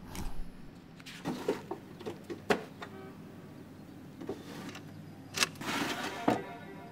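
A handful of small clicks and knocks as objects are handled, then a drawer sliding open, with a sharp click as it starts and another as it stops.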